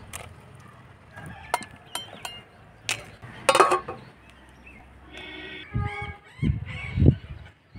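A metal plate clatters down onto a cooking pot as a lid, after a few lighter knocks. Then domestic fowl call several times.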